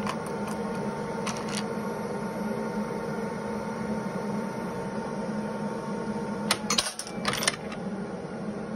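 Induction annealer working through a cycle: a thin steady whine from the induction coil's power stage over a low fan hum, cutting off about six and a half seconds in as the anneal time runs out. Right after, a quick burst of clicks and clatter as the annealed brass case is dropped out of the coil and the machine moves on to loading the next case.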